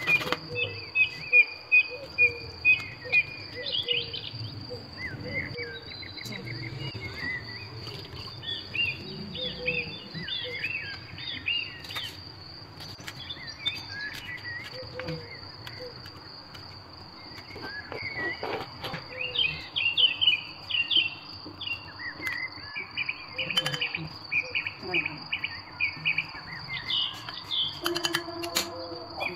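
Birds chirping over a steady, high-pitched insect-like tone, with a few sharp knocks from kitchen work.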